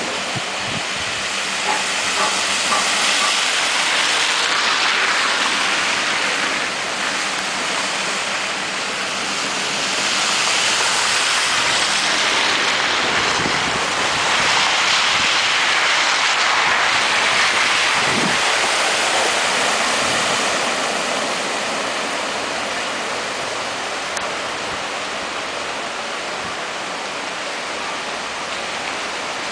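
Cars driving slowly through a flooded street, their tyres churning and splashing through standing water in a steady rushing hiss. It swells as vehicles pass close, loudest from about ten to twenty seconds in, then eases off.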